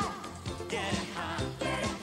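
Live pop song played by a band with drums, with a voice singing the melody.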